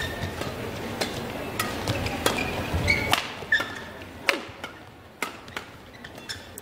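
Badminton rackets striking a shuttlecock in a fast men's doubles rally: a string of sharp hits, roughly one every half second to second, with short high shoe squeaks on the court between them and a low crowd murmur that fades about halfway through.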